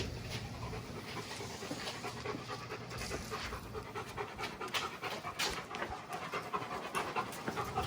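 A German Shepherd panting with rapid, repeated breaths.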